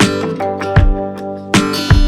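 Background music: relaxing instrumental with plucked guitar and a steady beat.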